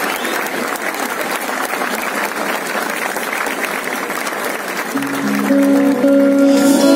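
Crowd applauding; about five seconds in, instruments begin playing held notes as the music starts.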